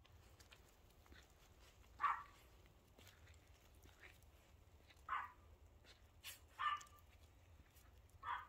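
Small toy poodle giving four short, single barks spaced a second or more apart.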